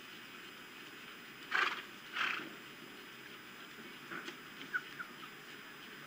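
Juvenile osprey calling: two harsh, screechy calls in quick succession, followed a couple of seconds later by a few short, faint chirps.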